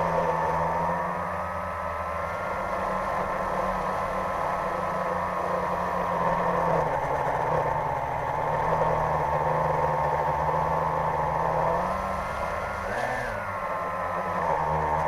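Quadcopter drone's motors and propellers whining steadily, heard from its onboard camera. The pitch rises a little about two seconds in and sweeps up sharply for a moment about thirteen seconds in, as the throttle changes.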